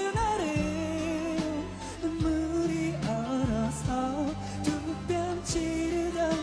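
A male voice sings a Korean pop song over band accompaniment, holding long notes with a slight vibrato.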